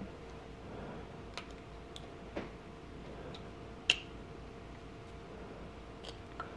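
A few small, scattered metal clicks of circlip pliers and a metal brake-reservoir elbow fitting being handled as a circlip is fitted, the sharpest one about four seconds in, over a faint steady hum.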